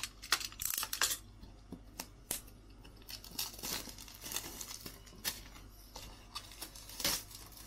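Plastic shrink wrap being torn off a trading-card box, crinkling and rustling with scattered sharp crackles.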